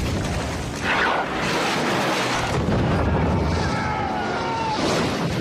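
Explosions in a war-film battle soundtrack: a loud blast about a second in, then continuous rumbling explosion noise as a military jeep is blown apart.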